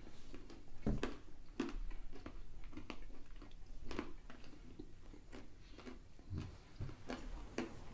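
A person chewing a mouthful of almonds and white chocolate buttons, with irregular crunches about once a second.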